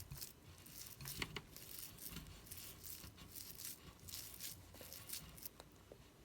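Cloud slime stiff with too much instant snow being stretched and squeezed by hand, giving faint, irregular crackling and tearing sounds.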